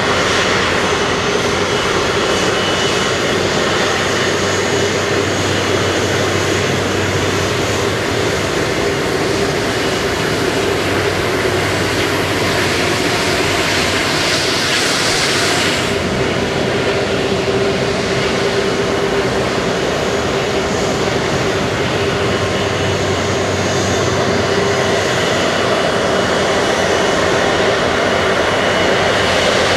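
Airbus A330-243 airliner's Rolls-Royce Trent 700 turbofan engines running with a steady jet noise and a held hum. A brighter hiss rises about twelve seconds in and cuts off suddenly some four seconds later.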